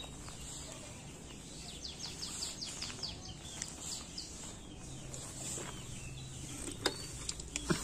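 Birds chirping outdoors, a quick run of short falling notes, over a steady high hiss; a couple of sharp clicks near the end.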